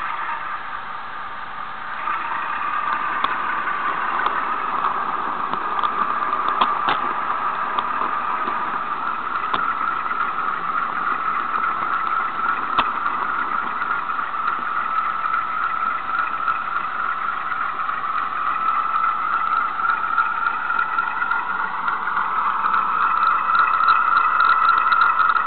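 Bachmann Class 47 model locomotive's DCC sound decoder playing a Class 47 diesel engine sound through its small onboard speaker while the model runs. The engine note is steady, with a few sharp clicks in the first half, and it rises in pitch and gets louder near the end.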